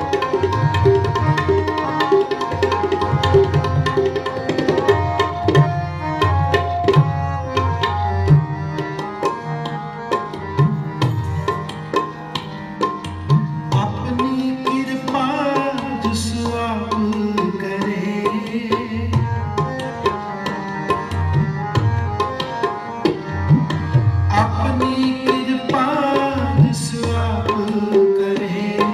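Tabla playing a busy rhythm under sustained held notes, in kirtan devotional music. A melodic line that bends in pitch, like a singing voice, comes in about halfway through and again near the end.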